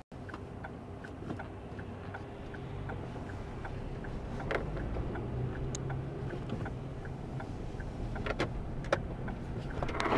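Car interior at low speed: a steady engine and road hum, with a regular ticking of about three a second, like a turn-signal indicator, through the first few seconds. A few scattered sharp clicks and knocks follow later.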